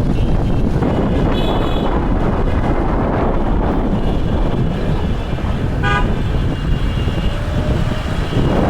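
Wind buffeting the microphone during a ride through city traffic, with vehicle horns honking: a high horn sounding on and off through most of it, and a short, lower honk about six seconds in.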